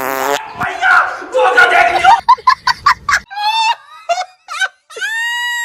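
A short fluttering fart noise right at the start, then voices. About three seconds in, a high-pitched giggling laugh sound effect begins, ending in a long held high squeal.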